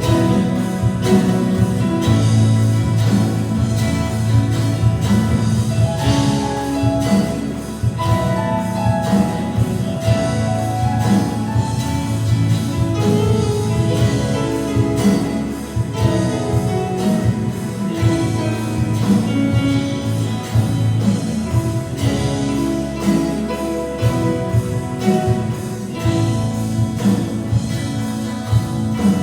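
Live worship band playing a song: guitar over a strong bass line and drums keeping a steady beat.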